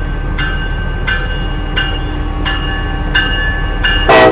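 Railroad grade-crossing bell ringing about once every 0.7 s over the low rumble of a passing freight train. Near the end comes a short, loud blast with several tones at once, the loudest sound here.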